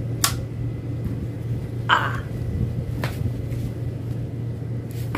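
Steady low hum of room noise, with a short rustle about two seconds in and a few faint clicks.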